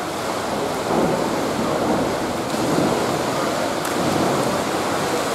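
Steady rushing, splashing water noise with faint, indistinct voices.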